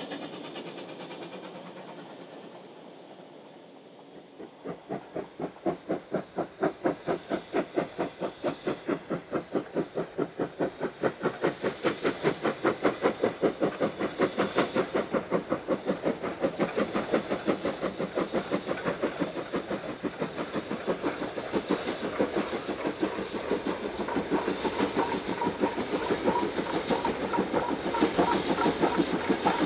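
Single-chimney BR Standard Class 9F 2-10-0 steam locomotive working a goods train up the bank, its chimney exhaust beating at a quick, even rhythm. The beats start faint about four seconds in and grow louder as the engine draws near.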